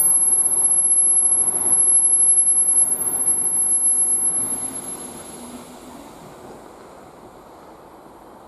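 ER2 electric multiple unit passing at speed. The wheels and rails make a loud, steady noise for about four seconds, then it fades away as the train moves off.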